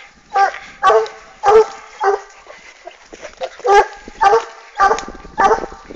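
Hunting hounds baying while working a scent trail: short pitched bays repeating about twice a second, with a brief lull in the middle.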